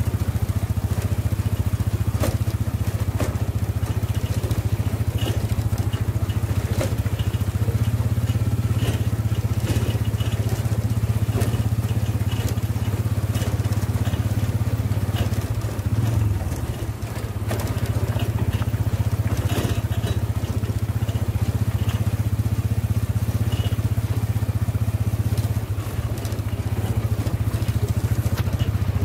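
Motorcycle tricycle's engine running steadily at road speed, with the body rattling and clattering over the road. The engine note dips briefly a little past halfway.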